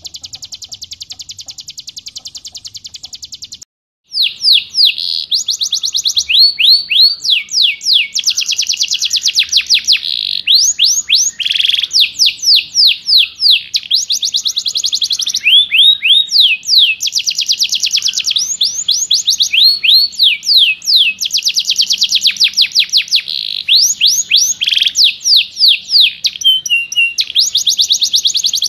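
Caged songbird 'tembakan' song, dense and rough: a fast, even high trill, a brief break about three and a half seconds in, then loud rapid-fire strings of sharp notes, each sweeping down in pitch.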